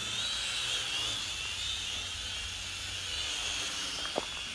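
Small toy quadcopter drone (Propel Maximum X11) hovering in flight: the steady high whine of its four small electric motors and propellers, the pitch wavering slightly as the throttle is adjusted.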